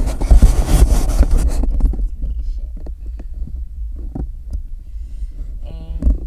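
Rustling and rubbing over a handheld phone's microphone as it is moved, loud for the first second and a half, over a steady low rumble with dull thumps inside a car.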